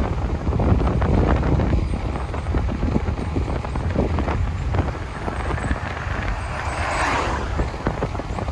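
Wind rumbling and buffeting on the microphone of a moving bicycle, steady throughout. About seven seconds in, a car passes in the oncoming lane, its tyre noise swelling and fading over about a second.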